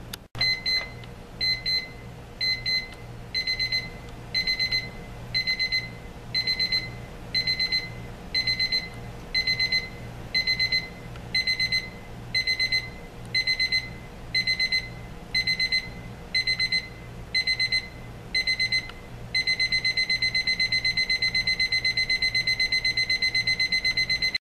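Advance model 3112 electric alarm clock sounding its three-stage ascending beep alarm. It starts with short single beeps about once a second, moves about three seconds in to longer groups of beeps about once a second, and near the end switches to continuous rapid beeping.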